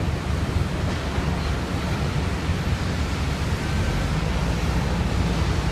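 Steady wind rumbling on the microphone, a low rumble with an even hiss over it.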